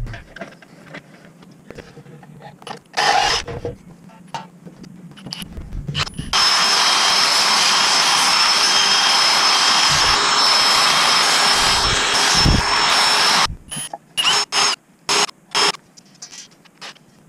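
Cordless Milwaukee brushless drill spinning a small sanding flap wheel against the edge of a round hole in a wooden board: a steady, loud sanding noise with a high whine, starting about six seconds in and lasting about seven seconds. A few light knocks come before it, and several short bursts near the end.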